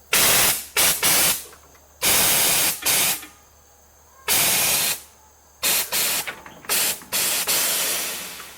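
Air suspension on a Datsun minitruck dumping air through its valves to lay the truck down: a string of about ten loud hissing bursts of varying length, the last one tapering off.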